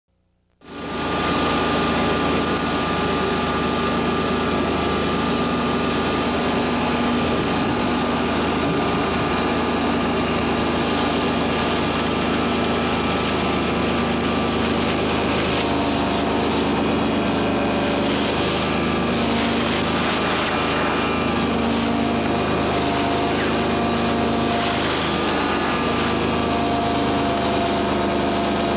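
Vacuum excavator running steadily, a constant engine-and-blower drone with a steady high whine, coming in about half a second in.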